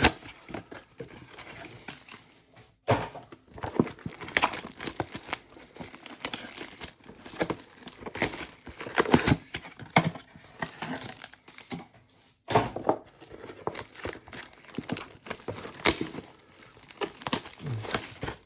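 Crinkling and tearing of wrapping as trading-card blaster boxes are opened by hand, in irregular rustling strokes with two brief pauses.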